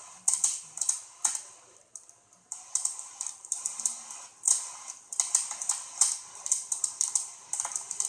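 Wood bonfire crackling, with irregular sharp pops and snaps, several a second, and short lulls between clusters.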